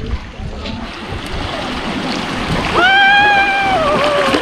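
Water rushing and splashing around a bamboo raft running through shallow rapids, growing louder after about a second. From near the three-second mark, a rider gives one long high shout that holds its pitch and then drops near the end.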